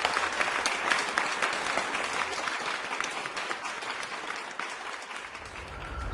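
Audience applauding, a dense patter of claps that thins and fades over the last second or so, as a low steady drone comes in near the end.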